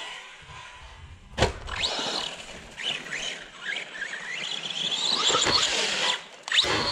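Arrma Big Rock RC monster truck driving hard, its electric motor whining up and down in pitch in quick rises and falls as the throttle is worked. There is a sharp knock about a second and a half in and another near the end.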